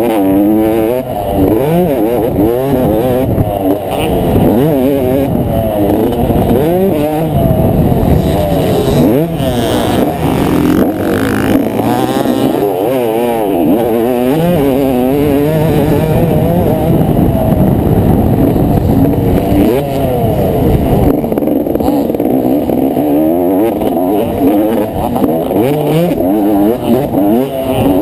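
Motocross bike engine heard from on board, running loud at racing speed. Its pitch rises and falls again and again as the rider accelerates, shifts and backs off.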